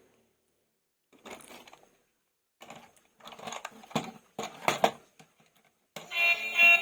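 Plastic toys and packaging being handled in short bouts of rattling with sharp clicks. About six seconds in, a loud electronic sound made of several steady tones starts.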